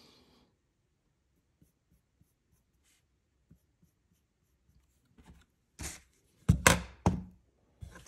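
Faint pencil scratches on sketch paper, then about six seconds in a few loud scrapes and knocks as a dial caliper and a wooden plane knob are handled and set down on the paper.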